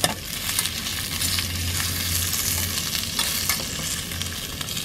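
Pepperoni slices sizzling in oil in a small pan on a butane stove, stirred constantly with a spork that clicks and scrapes against the pan.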